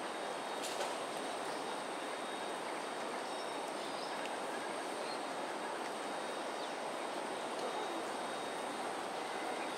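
Steady outdoor background noise: an even, constant hiss with a faint, thin high whine held above it.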